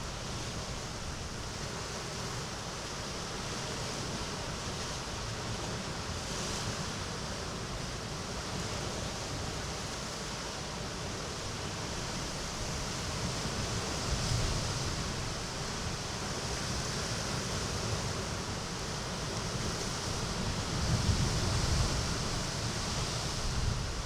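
Mediterranean sea waves washing into a small cove: a steady wash of surf, with louder surges about fourteen seconds in and again near the end.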